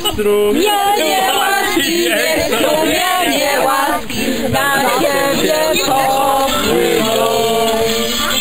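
A song with singing voices over music, the voices holding long notes that step from pitch to pitch.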